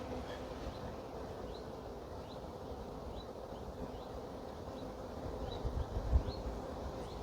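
Honey bees from an open hive humming steadily around a frame being inspected. A bird chirps repeatedly in short rising notes, and wind rumbles on the microphone near the end.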